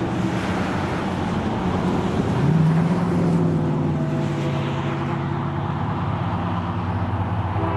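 Diesel locomotives of an approaching freight train working under power, heard as a steady rumble with engine tones. One engine note steps up in pitch about two and a half seconds in.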